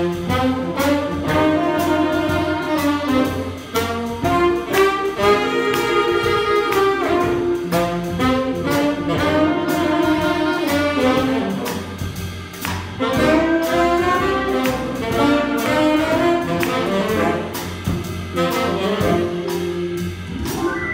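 Small jazz combo playing a blues: alto and tenor saxophones carry the melody over electric keyboard, upright bass and drums, with a steady cymbal beat.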